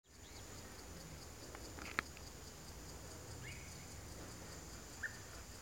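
Faint outdoor daytime ambience: a steady high-pitched insect drone over a low rumble, with a few short bird chirps. Two sharp clicks stand out, about two seconds in and near the end.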